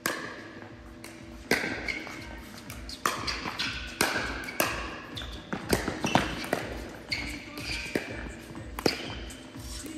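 Pickleball paddles striking the hard plastic ball during rallies, a string of sharp pops at uneven spacing that echo in a large hall.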